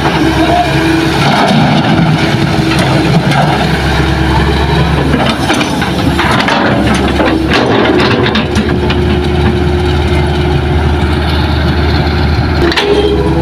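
Hitachi hydraulic excavator's diesel engine running steadily as the machine swings and digs soil, with a cluster of knocks and scrapes about six to eight seconds in.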